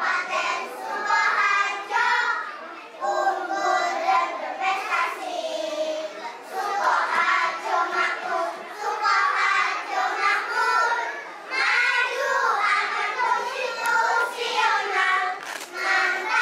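A small choir of preschool children singing a song together, phrase after phrase with short breaths between.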